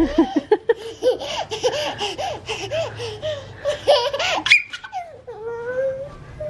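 A young child laughing in quick repeated bursts, ending in a brief high squeal about four and a half seconds in, followed by a longer drawn-out vocal sound.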